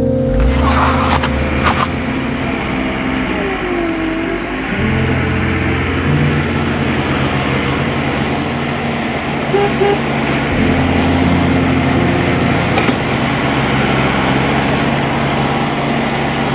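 A motor-driven machine running steadily, its low hum stepping in pitch a few times as the load changes, with a brief gliding whine about four seconds in.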